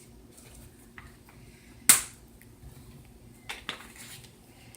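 A few light clicks and one sharp knock about two seconds in, from a utensil against a mixing bowl while the cinnamon crumb topping of butter, flour, sugar and cinnamon is being mixed.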